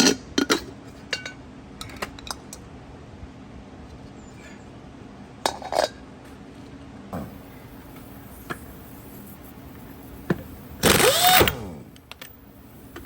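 Scattered metal clinks and taps of hand tools on a golf cart wheel's hubcap and lug nuts. About eleven seconds in, a power tool spins up and winds down again, rising then falling in pitch, as it loosens a lug nut.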